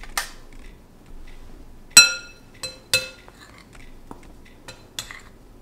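Scattered clinks and taps of a metal box grater against a glass mixing bowl as butter is grated into flour. The loudest is a sharp ringing clink about two seconds in, with another about a second later.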